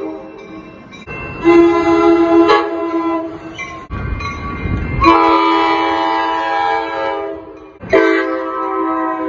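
Locomotive air horn sounding three long blasts, the first about a second and a half in and the last near the end, with a brief low rumble between the first and second.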